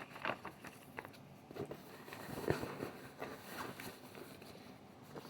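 Quiet handling noises from accessories being picked up and set down: scattered light clicks, taps and rustles, with one firmer knock about halfway through.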